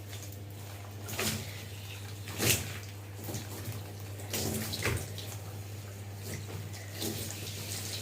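Running water splashing irregularly as shampoo is rinsed out of long hair in a bath, with a steady low hum underneath. The loudest splash comes about two and a half seconds in.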